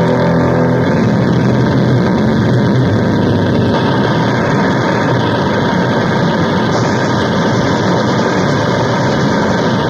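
Loud, steady engine noise, like a motor vehicle running, with no clear pitch and no break.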